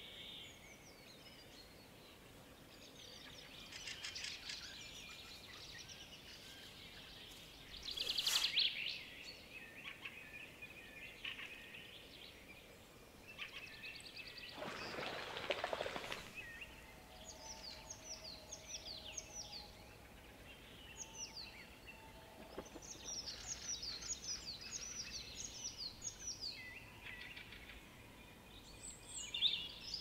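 Wild birds singing in the early morning: assorted chirps, a loud rapid trill about a quarter of the way in, and later runs of short downward-sliding whistles. About halfway through there is a brief rush of noise.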